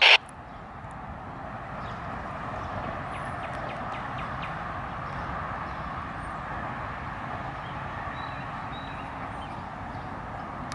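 Pair of EMD diesel locomotives running steadily as they come on and pass, a constant rumble and hum that gets a little louder about two seconds in. A loud horn blast cuts off right at the very start.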